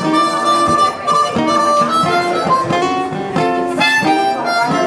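Blues harmonica playing a melodic instrumental line over acoustic guitar accompaniment.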